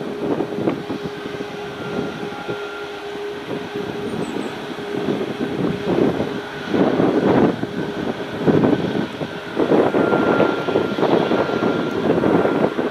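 Airbus A340-500's four Rolls-Royce Trent 500 turbofans running at taxi power as the airliner taxis, a steady whine over a jet rush. The rush grows louder and rougher from about six seconds in.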